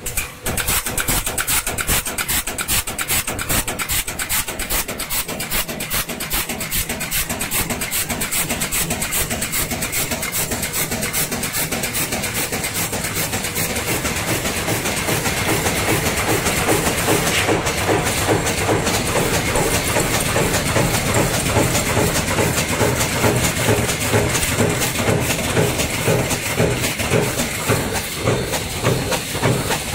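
Aerosol tin can dome and cone making line running: a rapid, continuous mechanical clatter of automatic stamping and conveying machinery, growing a little louder about halfway through.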